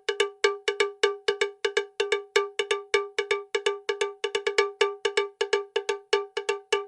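Percussion loop of a single metallic, bell-like tone struck at one pitch in a quick repeating pattern of pairs and triplets, about five strikes a second, with nothing else beneath it: the backing track of the video's music.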